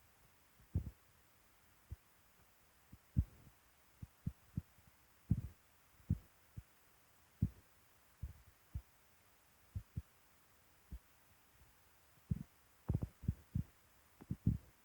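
Irregular dull low thumps, some single and some in quick clusters, the densest run coming near the end, over a faint steady hiss.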